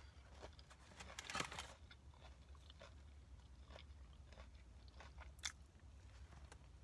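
Close-up eating: crisp fried food being bitten and chewed, a run of small crunches and mouth clicks, with a louder burst about a second and a half in and a sharp crunch shortly before the end.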